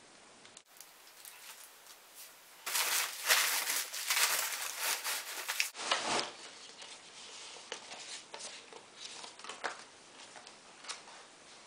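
Crumpled paper packing crinkling and rustling as hands dig through a cardboard box. It is loudest for about three seconds from around three seconds in, then goes on as lighter, scattered rustles and small ticks.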